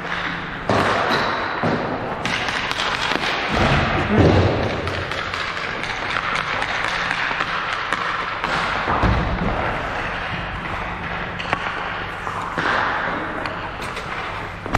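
Ice hockey rink during play: repeated thuds and taps of pucks, sticks and players hitting the boards, over a steady wash of noise, loudest about four seconds in.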